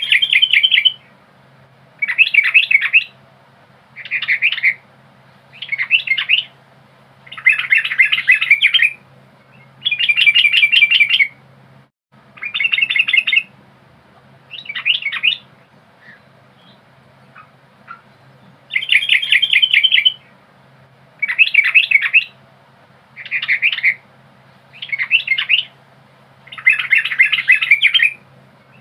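A yellow-vented bulbul singing: short, loud chirping phrases about a second long, repeated every second or two, with a longer pause past the middle.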